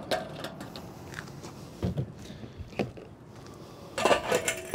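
A few light knocks and clicks from handling a plastic funnel at the fuel filler of a small Honda GX engine's tank, then a quick run of clicks near the end as the fuel cap goes back on.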